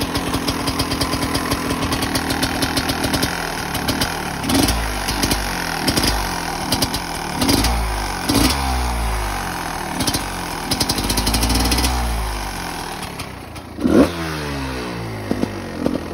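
GasGas EC 250 two-stroke enduro engine running: steady for the first few seconds, then revved up and down several times, with one sharp, loud rev near the end.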